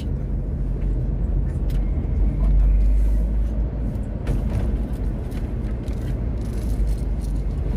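Vehicle interior noise while driving: a steady low engine and road-tyre rumble, swelling slightly about three seconds in.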